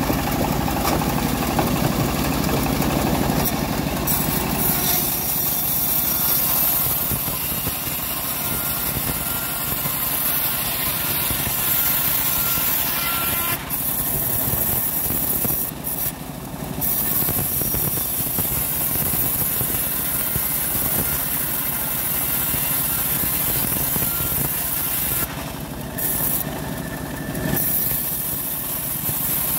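Homemade bandsaw mill running steadily while its blade rips through old teak planks. The high cutting noise briefly drops out a few times, around halfway through and again near the end.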